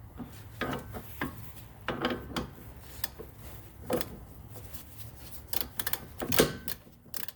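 Metal hand tools clicking and clinking as wrenches are worked on a rusty sway bar link nut, with a quick run of clicks about six seconds in.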